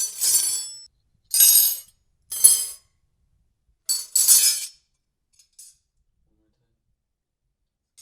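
Glass clinking and rattling in four short bursts with a faint fifth, each with a high ringing; the last main burst, about four seconds in, is the longest.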